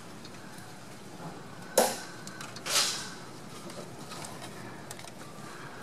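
Metal parts knocking as an oil pump is fitted up against the engine block: a single sharp metallic clank about two seconds in, then a short scraping rustle about a second later.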